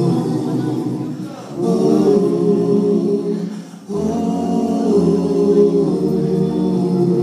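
Male a cappella vocal group of six singing in harmony into handheld microphones, with no instruments. The singing runs in long held phrases, with short breaks about a second and a half in and just before four seconds in.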